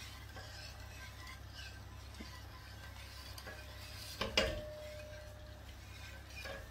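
A utensil stirring rice and milk in a cooking pot, with soft scraping against the pot. About four seconds in it strikes the pot once with a sharp clink that rings on for about a second.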